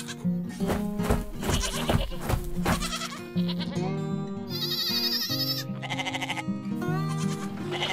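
Light cartoon background music, with a sheep bleating in one long wavering call about halfway through.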